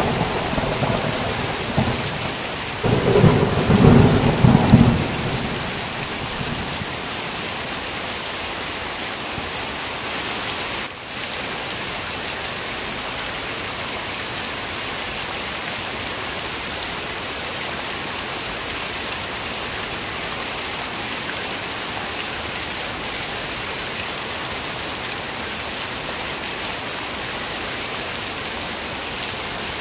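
Heavy rain falling steadily, with a rumble of thunder that rolls from about two and a half to five seconds in.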